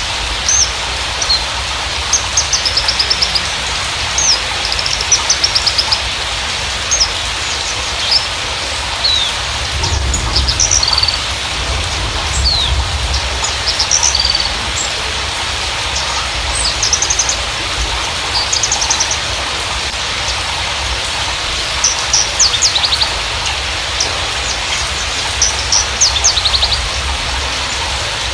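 Javan bushlark (Mirafra javanica parva) singing: short high trills and quick chirping notes, a phrase every second or so, over a steady hiss.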